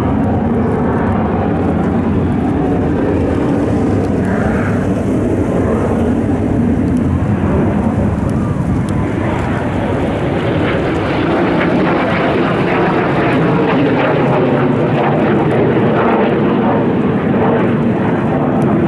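Jet noise from Blue Impulse Kawasaki T-4 jet trainers flying aerobatics: a continuous rumbling roar that grows fuller and brighter about halfway through.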